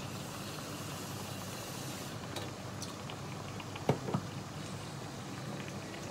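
Mabo tofu simmering in a frying pan after water was added: steady bubbling with small crackling pops, and two louder pops close together about four seconds in.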